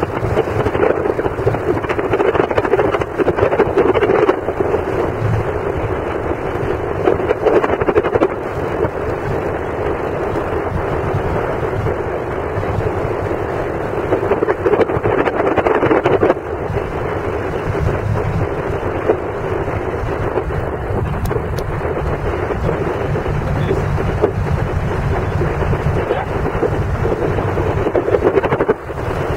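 Light single-engine piston plane's engine and propeller running steadily, heard from inside the cabin as it rolls along a grass runway after landing. The level drops a little a few seconds in and again about halfway through.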